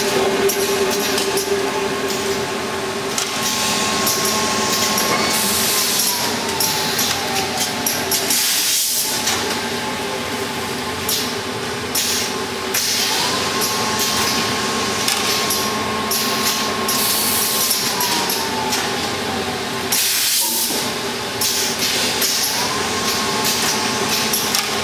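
Automatic T-shirt folding and bagging machine running. A steady hum carries on throughout, with a whine that rises, holds for a few seconds and glides down about every nine seconds as the machine moves through its cycle. Short air hisses repeat over it.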